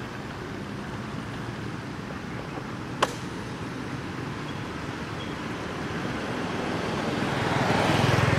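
Steady background motor-traffic noise, swelling near the end as a vehicle comes closer. A single sharp click sounds about three seconds in.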